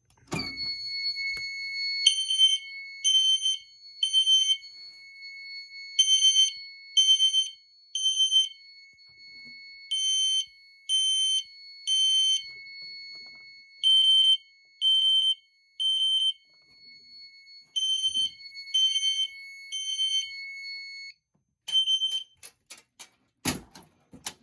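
System Sensor fire alarm horns sounding in alarm at their 3 kHz tone in the temporal-3 pattern: three short blasts, a pause, then again, five rounds. Under them a steady high-pitched tone sounds and cuts off about 21 seconds in. One last blast and a few sharp knocks come near the end.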